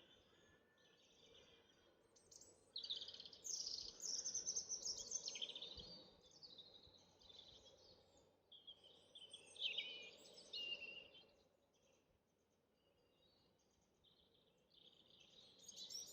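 Songbird singing in three bouts of quick, high chirping trills with short pauses between them, over faint steady background noise.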